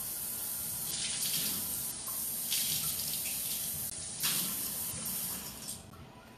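Kitchen faucet running into a stainless sink while cored bell peppers are rinsed under the stream, the splash swelling several times as the water strikes the peppers; the tap shuts off near the end.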